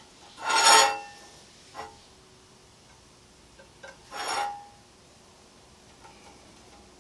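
Steel bar stock handled against metal: two brief scraping clanks with a ringing tone, the louder about half a second in and another about four seconds in, with a fainter knock near two seconds.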